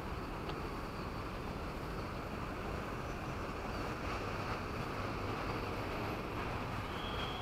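Steady rumble and rushing air of a moving electric commuter train, heard from on board. A thin, steady high tone comes in near the end.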